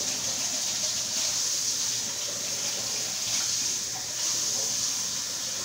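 Kitchen tap running a steady stream of warm water.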